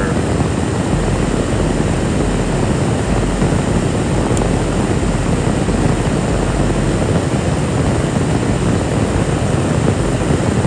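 A car's air-conditioning blower running steadily inside the cabin: an even rushing noise with no change.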